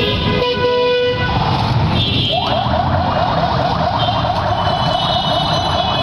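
Street traffic with vehicle horns sounding over a steady noise of engines. About two seconds in, an engine rises in pitch and keeps running at a higher speed.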